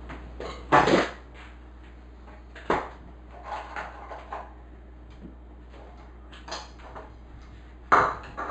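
Kitchen knocks and clatter while fruit and butter are being cut up: a few sharp knocks, loudest about a second in and near the end, with lighter taps between.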